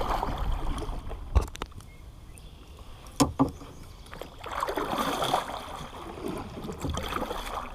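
Water sloshing and lapping, with two sharp knocks, one about a second in and another about three seconds in.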